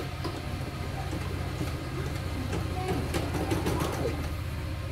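CNY E900 portable embroidery machine stitching: a steady, fast mechanical rattle of its needle strokes.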